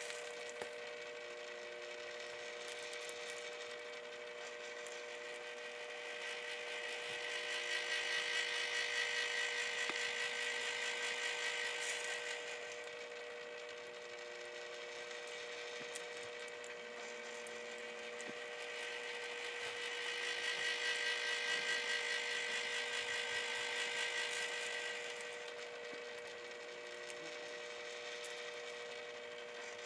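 Homemade rotisserie humming steadily as its motor turns the spit, the hum swelling and fading twice, about twelve seconds apart.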